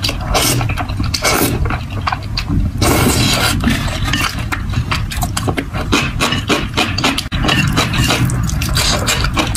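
Close-miked eating of spicy noodles: wet slurping and chewing with many small mouth clicks and smacks.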